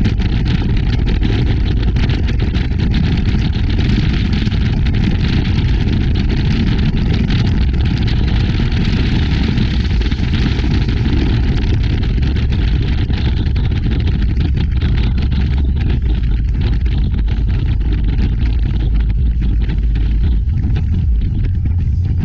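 Powerboat running steadily under way, heard from its bow: a continuous low engine rumble mixed with rushing water along the hull and wind on the microphone.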